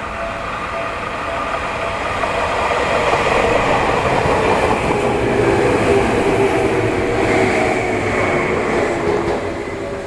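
Tokyu Tamagawa Line electric train passing close by over a level crossing, growing louder to a peak through the middle and fading toward the end. The crossing's warning bell rings beneath it, mostly drowned out while the train goes by.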